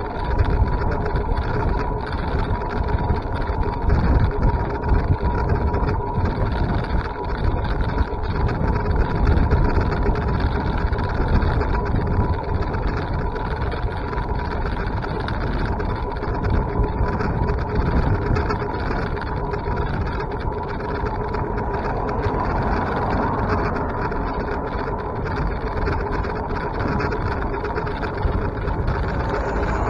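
Steady vehicle travel noise: a continuous low rumble with a faint steady whine, unchanging throughout.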